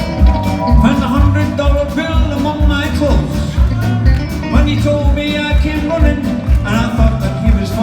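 Upbeat song with a steady bass beat and a singing voice.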